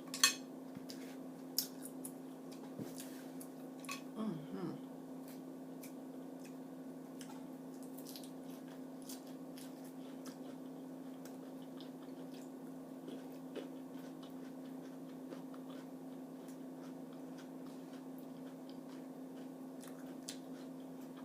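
Mussels being eaten: soft chewing and squishy mouth sounds, with scattered light clicks and taps from the shells and a spoon, over a steady low hum.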